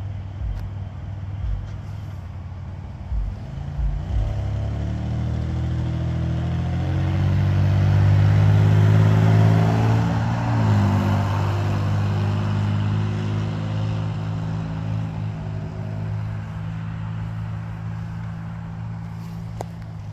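An SUV driving past close by. Engine and tyre noise build over several seconds, peak about halfway through with a drop in pitch as it passes, then fade slowly away.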